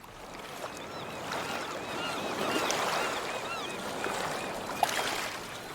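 Sea waves washing and lapping, fading in at the start, with a run of short high chirps over the water in the middle and a single sharp click just before the end.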